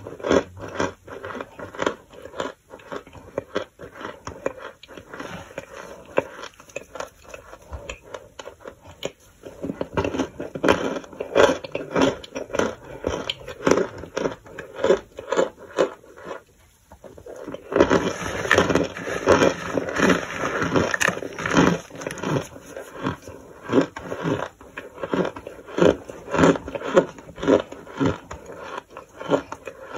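Toasted powdered starch being crushed and crumbled by hand in a tray, giving a steady run of short crunches. A brief pause comes a little past halfway, followed by a denser stretch of crunching.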